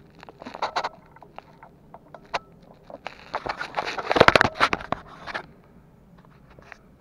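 Handling noise from a Well MB4410A airsoft sniper rifle held close to the microphone: scattered clicks and scrapes, then a dense run of knocks and rubbing about three to five and a half seconds in, dying away near the end.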